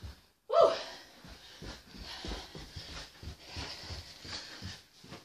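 Quick, regular footfalls thudding on carpeted stairs during double-step stair climbing, about three steps a second. A short, loud sound about half a second in stands out above them.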